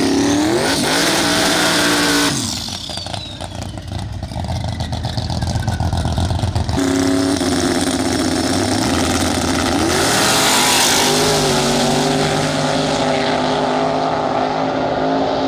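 Drag race car engines: one revs hard through a burnout, then runs at a rough, popping idle, then two cars rev up at the line and launch side by side, engines running hard down the strip.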